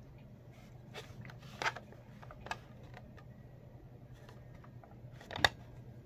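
Plastic smoke alarm being picked up and turned over by hand: a few light clicks and knocks in the first few seconds, then one sharp click about five and a half seconds in, the loudest. A low steady hum sits underneath.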